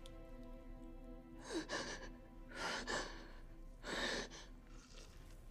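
Three heavy, gasping breaths about a second apart. A sustained chord of music sounds under the first and fades out.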